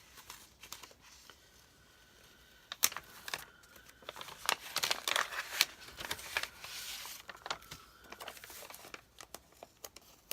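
Plastic sticker bag crinkling and crackling as it is opened and the sticker sheets are handled, with many sharp clicks, busiest from about three to nine seconds in.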